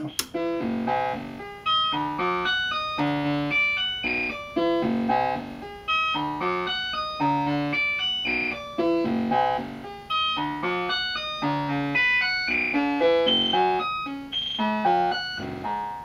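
Modular synthesizer voice played by a DIY four-knob step sequencer: a fast, steady stream of short, clearly pitched notes several a second, jumping up and down in pitch, from a sequence set to 16 steps.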